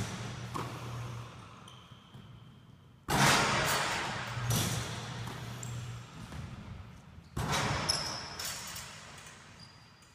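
Basketballs bouncing and striking in a large gym: two loud sudden impacts, about three seconds in and again past seven seconds, each ringing on in the hall's echo, with fainter knocks between.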